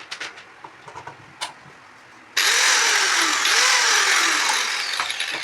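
A few handling clicks and knocks, then about two seconds in an electric grinder's motor switches on abruptly and runs loudly, its pitch rising and falling twice before it starts to wind down near the end. This is a test run of the repaired grinder.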